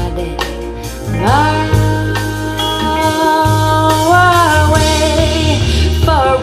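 Jamo S606 loudspeakers playing a vocal ballad with a full band, picked up by a microphone in the room. A singer glides up into long held notes about a second in and again near the end, over a steady bass line.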